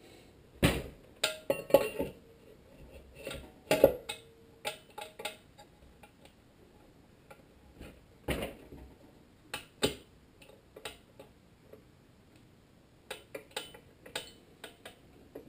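Scattered metal clicks and knocks, a few with a short ring, as a Tecumseh HSK70 engine's crankshaft is handled and fitted into its crankcase.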